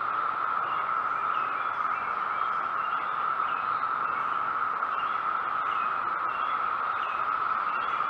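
Chorus of 17-year periodical cicadas: a steady, unbroken drone, with faint short bird chirps scattered over it.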